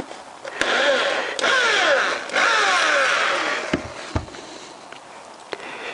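An electric drill with a step drill bit widening a hole, cutting in two spells of about a second and a half each, with a couple of low knocks near four seconds.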